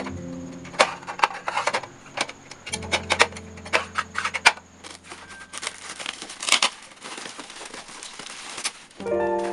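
A small clear plastic drawer organizer being handled, giving sharp plastic clicks and taps, then cardboard packaging being torn open and rustling in the second half.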